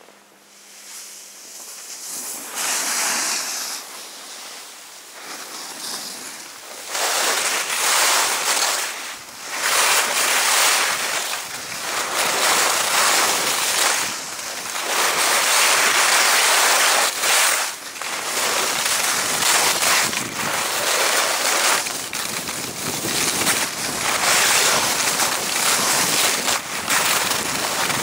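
Skis sliding downhill on snow, the edges hissing and scraping in surges that swell and ease with each turn, mixed with wind noise on the microphone. It builds up from quiet over the first few seconds as the skier gets going.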